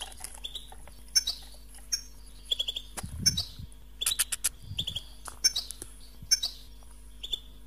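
European goldfinches calling: short clusters of quick, high chirps repeating about every second. Two low rumbles of the handheld phone being moved come in near the middle.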